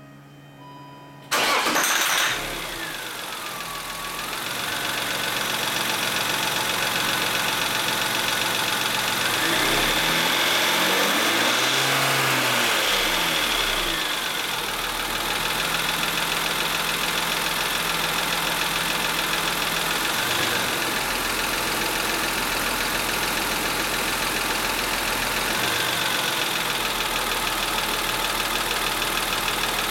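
BMW E39's M52 straight-six starting about a second in, with a brief loud flare that drops away, then idling. Its note rises and falls once midway, then steadies. The owner reports this engine as making a bad sound.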